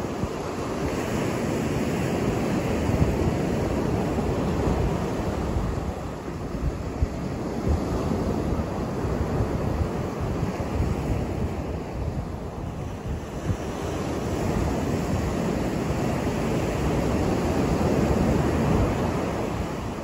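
Ocean surf breaking and washing up a sandy beach, a steady rush that swells as each wave comes in and eases between them.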